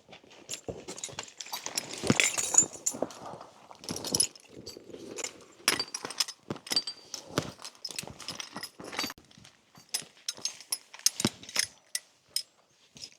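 Metal harness fittings clinking and knocking irregularly as draught horses are tacked up, with a denser clatter about two seconds in.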